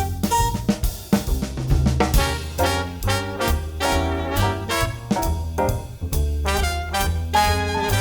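Background music: an upbeat jazz track with brass and a full drum kit keeping a steady beat.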